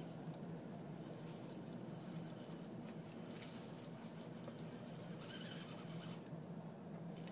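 Axial SCX10 RC crawler climbing a slope of dry leaves: its electric motor and gears make a faint, steady whir while the tyres crackle and rustle over the leaves, louder in patches about three and five seconds in.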